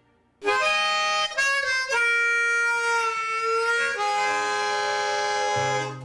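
Harmonica played, a short slow phrase of long held chords that starts about half a second in and dies away near the end.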